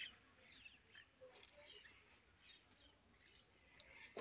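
Near silence in the open air, with faint, sparse bird chirps now and then.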